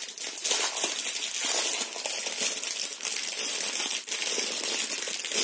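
Plastic packaging crinkling and rustling as it is handled and opened: a steady stream of small crackles.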